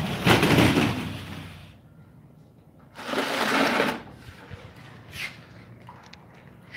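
Two bursts of flapping, spraying noise, the first about a second and a half long and the second about three seconds in and about a second long: a wet Siberian husky puppy shaking the water out of its coat.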